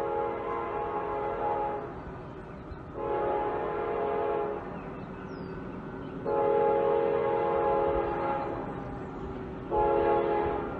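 Locomotive air horn sounding repeated blasts for a grade crossing, each blast a chord of several steady tones, with short gaps between them and the last blast shorter. A low train rumble runs underneath.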